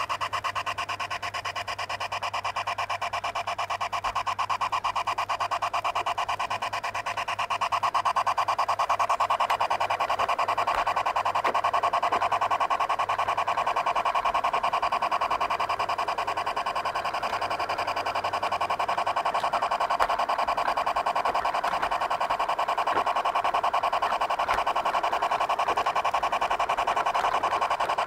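Garden-railway model locomotive running along its track, heard from the wagon it is pulling: a steady mechanical whirr with a fast, even pulse, growing a little louder about eight seconds in.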